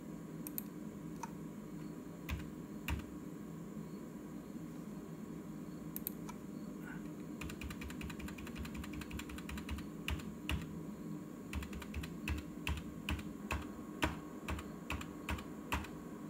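Computer keyboard keys being pressed while editing text: a few scattered taps, then a fast run of keystrokes about halfway through, then single key presses about three a second.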